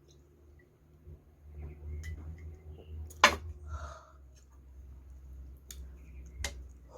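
Eating sounds: cutlery clicking against a dish, with one sharp click about three seconds in and another near the end, over a steady low hum.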